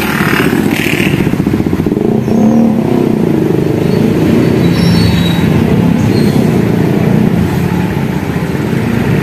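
Road traffic passing close by: motorcycles, cars and a jeepney going past with their engines running steadily.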